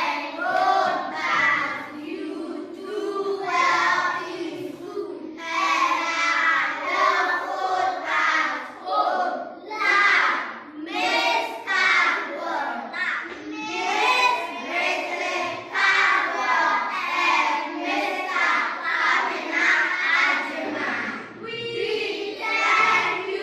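A class of children reading a message aloud together in unison, in a chanting rhythm, phrase by phrase with short breaks between.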